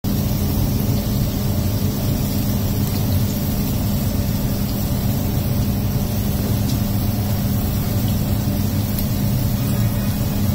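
Steady low mechanical rumble with a constant hum, engine-like background noise.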